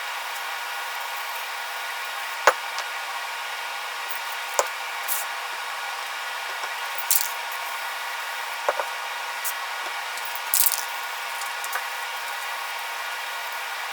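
3/0 steel wool rubbed in brief scratchy strokes over a dried polyurethane finish on a wooden board to knock down the nibs, with a few light knocks as the board and wool are handled, over a steady background hiss.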